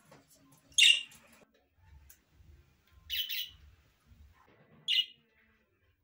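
Budgerigars giving short, high-pitched chirps in three separate bursts: about a second in, a little after three seconds, and near five seconds. The first burst is the loudest.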